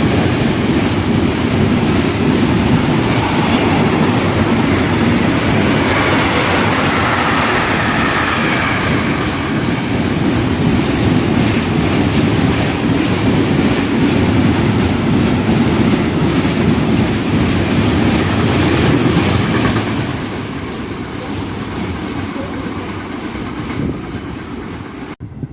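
A train rolling past close by: steady, loud wheel-and-rail noise with clickety-clack over the rail joints. The noise falls away about twenty seconds in as the train moves off.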